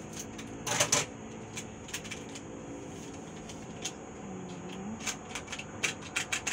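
Scissors snipping open a foil-laminate powdered-drink sachet, with a loud rustle just under a second in, then the packet crinkling and ticking in the hand as its powder is shaken out into a ceramic bowl.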